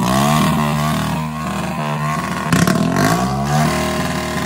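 Hero Glamour motorcycle's 125 cc single-cylinder engine revving through a short open pipe fitted in place of the stock silencer, its pitch rising and falling several times as the throttle is blipped.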